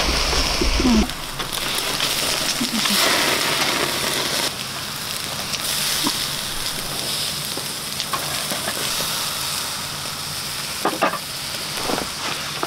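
Food sizzling on a tabletop grill: pork neck and shellfish cooking over the heat, a steady hiss and crackle.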